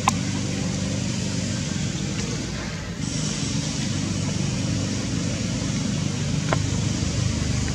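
Steady rumble of background road traffic, a little louder from about three seconds in, with a sharp click at the start and a fainter one near the end.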